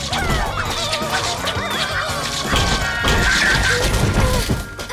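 Cartoon action score with crash and thud sound effects, as characters bang into a wooden door.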